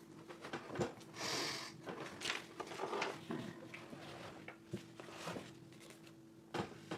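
Small plastic LEGO Technic pieces clicking and rattling as they are handled and fitted together, with scattered sharp clicks and a brief rustle about a second in.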